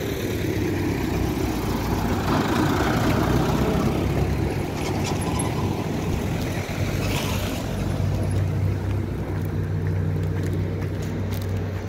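A car drives past on the street, its engine and tyre noise swelling and then falling away, followed by a steady low engine hum.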